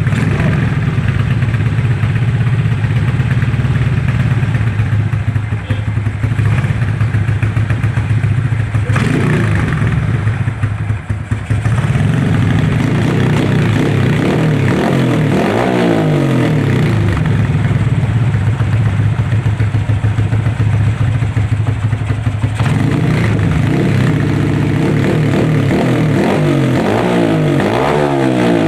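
Motorcycle engine with a 57mm big-bore cylinder block and an ORBR chicken-pipe exhaust. It runs steadily at first, then is revved in repeated blips from about a third of the way in, with the pitch rising and falling with each blip.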